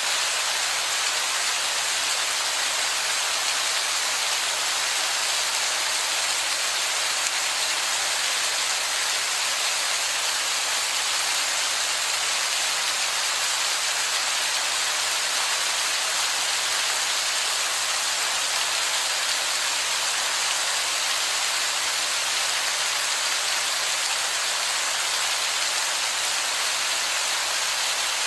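Heavy rain falling and splashing onto wet, mossy rock: a steady, even hiss with no break or change.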